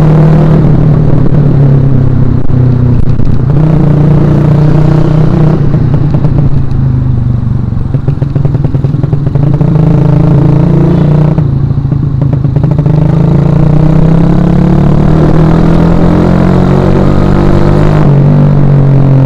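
Suzuki Shogun Axelo R 2011 motorcycle's single-cylinder four-stroke engine running under way, loud and close. Its pitch climbs with the revs and drops sharply twice, about six and eleven seconds in, then climbs again.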